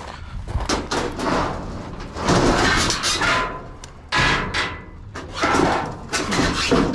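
Scrap items being handled and loaded onto a truck: a run of clanks, bangs and scraping clatter in several bursts.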